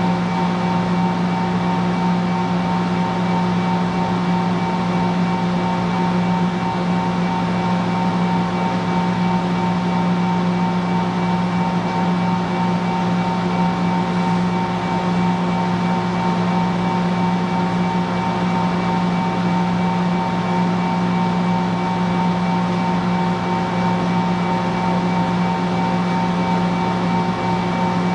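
Steady electrical hum of a standing Shinano Railway 115-series electric train's onboard auxiliary equipment: a constant low hum with several fixed higher tones, unchanging in pitch or level.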